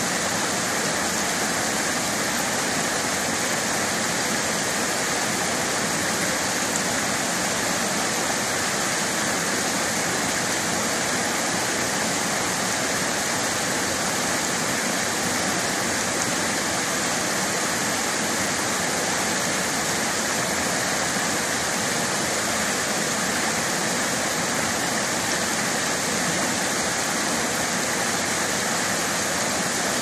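Small waterfall cascading over rocks into a mountain stream: a steady, unbroken rush of water.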